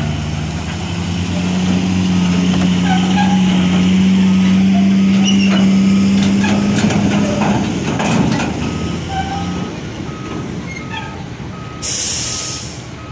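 Reach stacker's diesel engine working hard under the load of a prefabricated house, easing off about seven seconds in, with a reversing alarm beeping steadily. A clank sounds about eight seconds in and a short hiss of air near the end.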